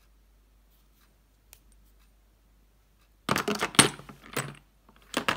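Makeup bottles, glass foundation bottles among them, clinking and clattering against each other in a plastic storage box as a hand rummages through them. The clatter comes in a burst about three seconds in and again briefly near the end.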